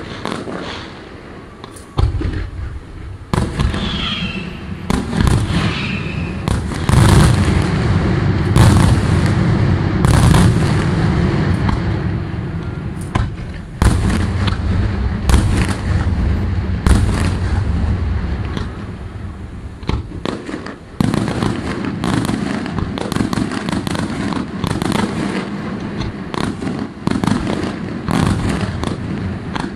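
Daytime fireworks display: aerial shells burst in a rapid barrage of loud bangs and crackling reports over a continuous rumble. Sudden new volleys open about 2, 14 and 21 seconds in.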